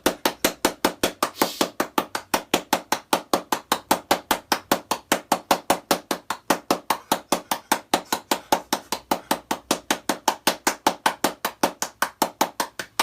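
Rapid, evenly spaced knocks, about five a second, keeping a steady beat without a break.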